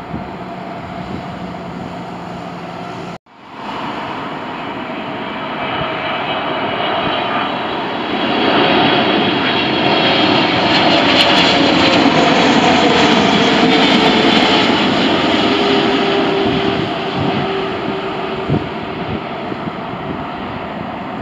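Boeing 777 jet engines on final approach, passing close: a rising rush that swells to a loud peak and fades, with a whine that falls in pitch as the airliner goes by. The first few seconds hold a fainter, steadier jet and wind noise that cuts off abruptly.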